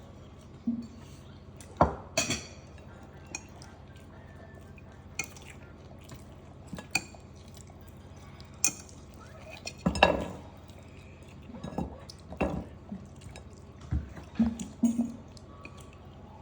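Cutlery and dishes clinking and knocking during a meal: scattered light taps with a few louder knocks, the loudest about two seconds in and again about ten seconds in.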